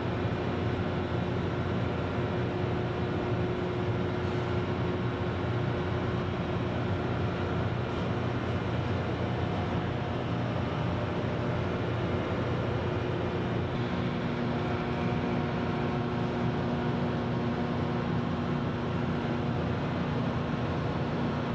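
Overhead bridge crane hoisting a space shuttle external tank: a steady mechanical drone with low hum tones, a new hum tone coming in about two thirds of the way through.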